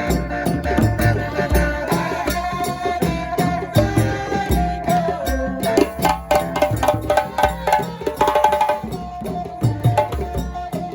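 Music with deep drum beats, a melody line and quick, sharp percussion strokes that grow denser from about six to nine seconds in.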